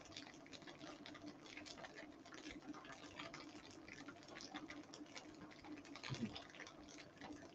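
Faint crackling of tofu frying in oil in a pan: small irregular pops and ticks, with a low steady hum behind them.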